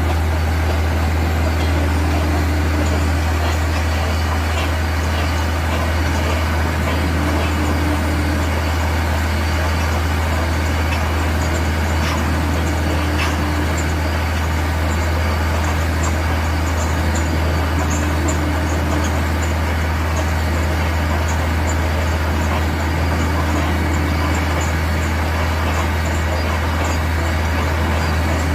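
Heavy drilling machinery with its air compressor running steadily under a continuous deep hum. A short faint tone repeats about every three seconds.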